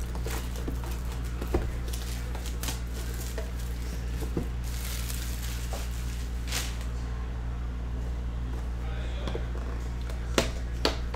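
Hands peeling plastic shrink wrap off a cardboard box: intermittent crinkling and rustling with small clicks and taps, the sharpest two near the end. A steady low hum runs underneath.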